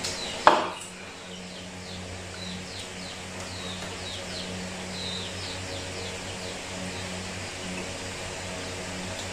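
Small birds chirping in a run of short, high, falling chirps, several a second, over a steady low hum. About half a second in there is a single sharp knock.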